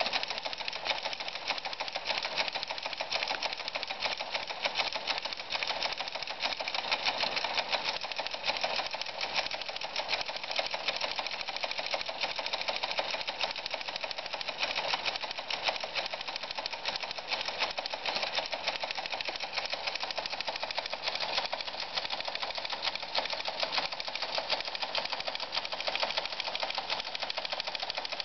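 Electromechanical RTTY teleprinter printing continuously: a rapid, steady clatter of its typebars and print mechanism.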